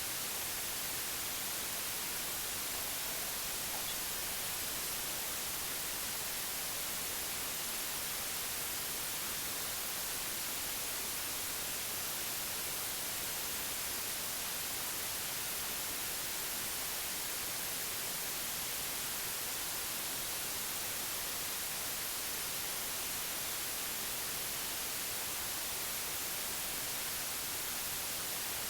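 Steady white noise: an even, unchanging hiss, brightest in the treble, with no breaks.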